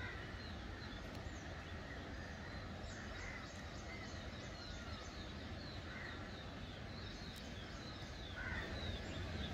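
Outdoor bird chorus in garden trees: many short, falling chirps repeating a few times a second, with a louder call every few seconds over a steady low background hum of wind and ambience.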